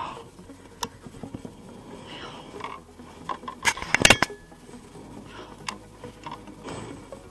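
Clicks and knocks of a landing net and fishing gear against a plastic kayak deck while a netted largemouth bass is brought aboard, with a burst of sharp clattering about four seconds in.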